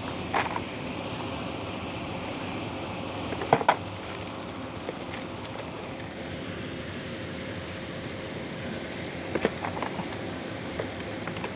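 Daikin air conditioner outdoor unit running with a steady hum, broken by a few sharp clicks, a pair of them about three and a half seconds in and a cluster near the end.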